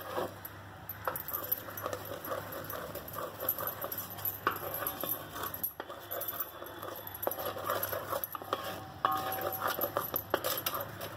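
Wooden spatula scraping and knocking against a metal pot while stirring thick jaggery syrup that has begun to froth, with irregular scrapes and small clicks throughout.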